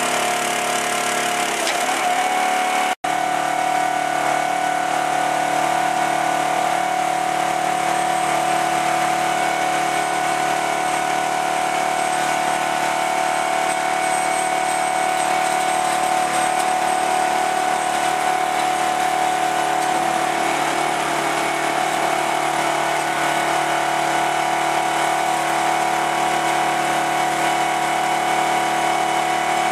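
Engine of a firewood processor running steadily at constant speed, with a steady whine over it. The pitch sags briefly near two seconds in, and the sound cuts out for an instant about three seconds in.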